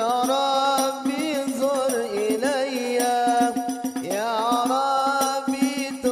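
Sholawat music: a male voice sings long, ornamented held notes that bend in pitch, through a microphone, with hadroh rebana frame drums beating underneath.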